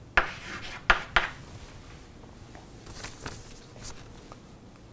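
Chalk writing on a blackboard: several sharp taps and short scratchy strokes in the first second or so, then only faint scuffs.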